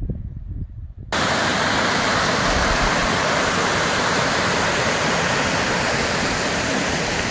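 Loud, steady rushing water from a fast stream or waterfall. It starts abruptly about a second in, after a brief low rumble.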